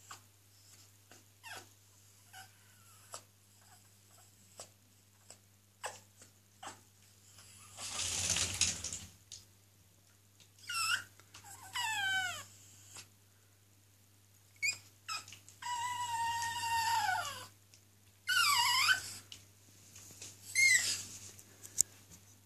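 Wet Pomeranian puppy whining: a series of about five high whimpers that slide in pitch, one of them a long falling whine of about two seconds. Before them come scattered light clicks and a second-long burst of noise.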